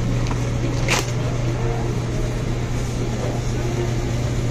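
Grocery store background: a steady low hum with faint voices under it, and a single sharp click about a second in.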